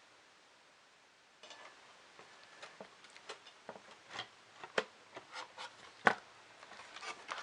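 Irregular light clicks and taps of small plastic and metal 3D printer kit parts being handled and fitted together, with one sharper knock about six seconds in. The first second or so is almost silent.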